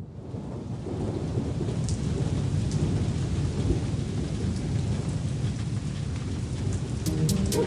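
Steady rain falling, with a low rumble under it. Plucked music notes come in near the end.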